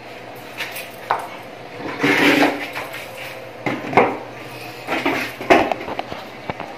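Clinking and clattering of small hard objects: several separate knocks about a second apart, with a longer rattle about two seconds in.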